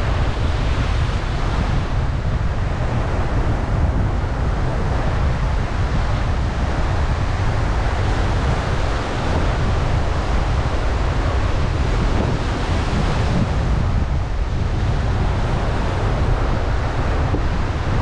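Ocean surf breaking and washing over a rocky shore, with wind rumbling and buffeting against the microphone.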